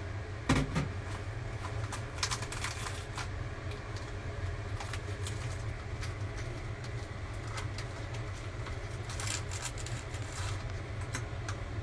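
A small ceramic bowl is set down on the counter with a sharp knock about half a second in. A small plastic packet crinkles in two spells as it is handled and opened over the bowl. A steady low hum runs underneath.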